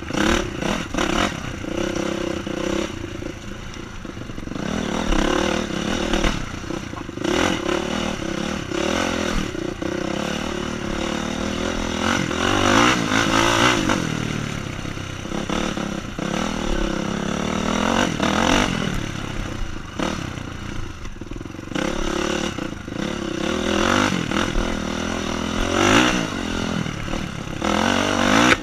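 Honda CRF dirt bike's four-stroke engine being ridden hard, its pitch rising and falling over and over as the throttle is opened and closed and the gears are shifted. Short knocks from the bike bouncing over the track run through it.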